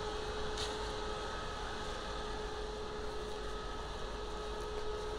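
Electric blower fan running steadily, inflating a large inflatable lemon advertising blimp: an even rush of air with a constant hum and a higher steady whine.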